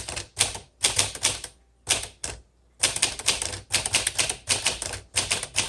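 Typing on a 1957 Smith Corona Silent Super manual typewriter: a quick run of key strikes, a pause of about a second, then steady typing again.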